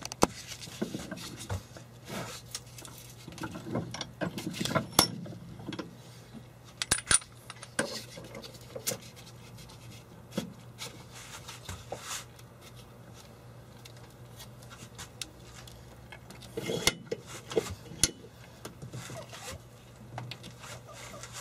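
Metal parts clinking, knocking and scraping as a gear and its shaft are handled and set between the jaws of a cast-iron bench vise. The clicks are scattered and irregular, busiest at first and again a few seconds before the end, over a steady low hum.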